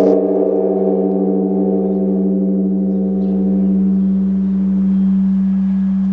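A large bronze Korean Buddhist temple bell (beomjong) ringing just after being struck. A strong low hum holds steady while several higher tones fade out over about five seconds.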